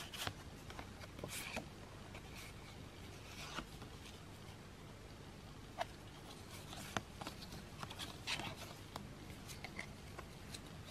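Photo cards, some of clear film, being handled and slid past one another by hand: faint rustles and a scatter of light clicks and taps.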